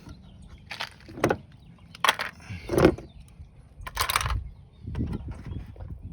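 Rear lift door latch mechanism being worked by hand, giving a series of about five sharp metallic clicks and clunks as the freshly refitted latch is tested.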